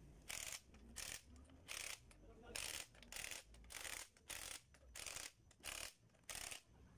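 Cordless impact wrench tightening the axle flange bolts on a truck's rear wheel hub: a string of short hammering bursts, about two a second.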